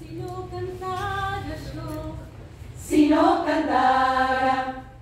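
Women's choir singing in harmony without accompaniment: a soft phrase, then a louder final chord held from about three seconds in and released just before the end.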